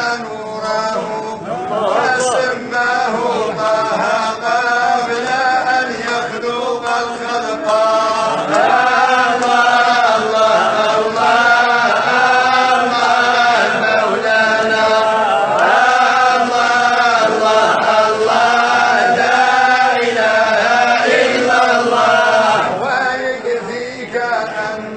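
A man chanting in long, wavering, held phrases, a little louder from about eight seconds in.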